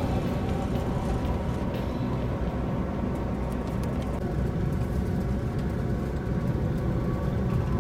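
Steady engine and road noise inside a moving tour coach, a low even rumble with a faint hum, cruising along the highway.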